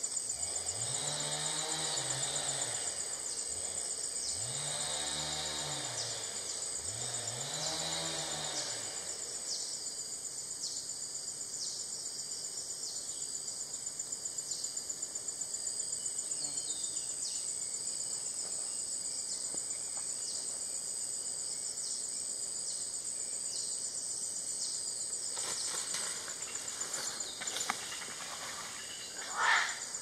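Tropical rainforest ambience: a steady high-pitched insect drone, with three low calls in the first nine seconds, each rising and then falling in pitch over about two seconds. A few clicks near the end.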